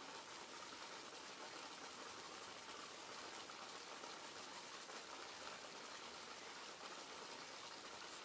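Faint, steady hiss with no distinct sounds in it.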